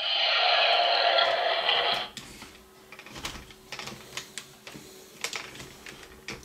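A loud rushing noise for about two seconds, then scattered clicks and knocks of hard plastic toy figures being handled and moved on a tabletop.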